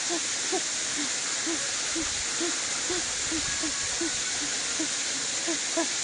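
A woman's short, evenly repeated hums of shivering cold, about two a second, after a plunge into freezing water, over a steady hiss.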